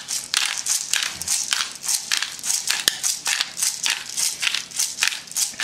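Hand pepper mill grinding black peppercorns: a steady run of short, gritty crunching strokes, about three or four a second, as the mill is twisted back and forth.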